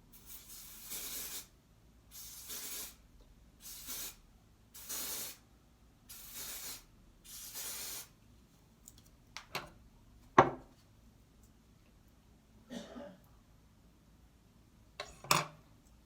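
Aerosol spray can sprayed in six short hissing bursts, as a hair spray is put on the edges of a wig. A few sharp handling knocks follow, the loudest about ten seconds in.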